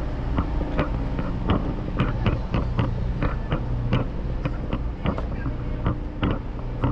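Ro-ro ferry's engines running with a steady low drone, overlaid by footsteps clicking on the ribbed steel car deck about twice a second.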